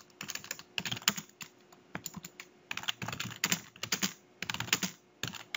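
Typing on a computer keyboard: runs of quick keystroke clicks with short pauses between them as a line of code is entered.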